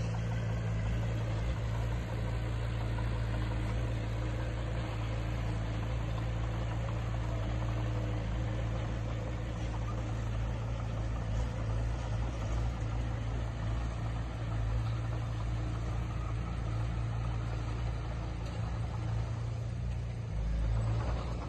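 Diesel engine of heavy earthmoving equipment running steadily with a low, even hum, with a brief change in pitch and level near the end.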